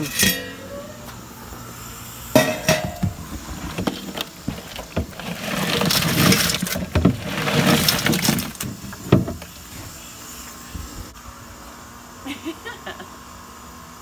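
A load of crawfish clattering and rattling as they are dumped into a stainless steel boiling pot. The dense rattle runs for a few seconds in the middle, with sharp metal knocks of the pot before it.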